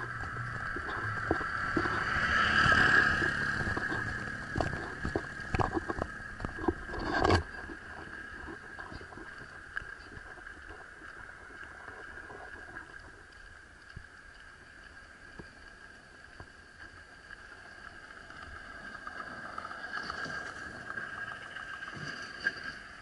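A steady high-pitched buzz that carries on throughout, swelling briefly near the start. For the first seven seconds or so, low rumble and scattered knocks from wind and handling on the camera microphone lie under it, ending in one sharp knock.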